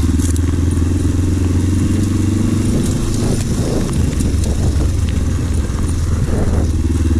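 Kawasaki KLE500 trail bike's parallel-twin engine running under way at low, steady revs. Its note wavers with the throttle for a few seconds in the middle, then settles again.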